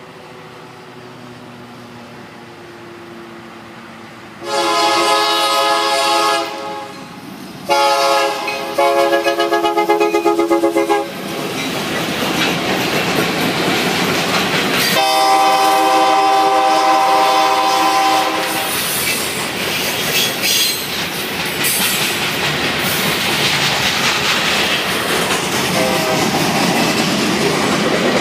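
Union Pacific SD70M locomotive's multi-note air horn sounded in a string of blasts: a long blast about four seconds in, a short one, a rapidly fluttered blast, then another long blast about fifteen seconds in. The freight train then passes, its wheels clacking over the rail joints.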